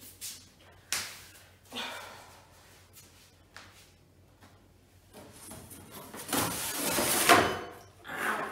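Flat-pack furniture boards being handled: a few light knocks early, then a longer scraping, sliding noise, loudest near the end, as a board is pulled out of a stack of panels.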